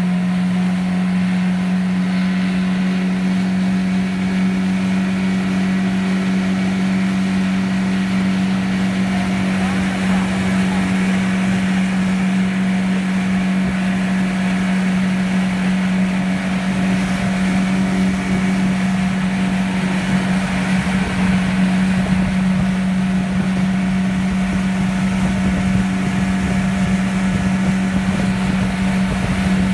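Pontoon boat's outboard motor running at a steady cruising speed, a constant low hum, over the rush of water in its wake and wind on the microphone, which grows rougher in the second half.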